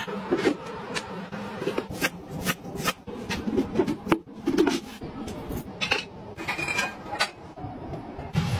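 Kitchen utensils being handled: a run of sharp clicks, knocks and scrapes of knives and cutting boards on a worktop.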